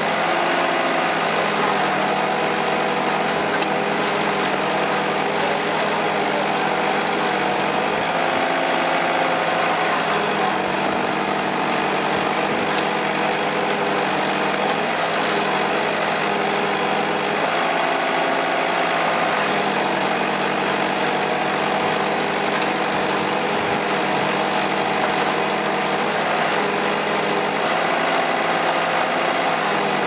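Bull HD 60 Smart backhoe loader's engine running steadily as the backhoe arm digs, its note shifting slightly about every ten seconds as the machine works.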